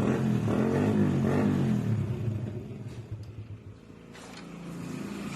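Honda Wave 100R's single-cylinder four-stroke motorcycle engine running, its revs rising and falling, then dying away about three seconds in.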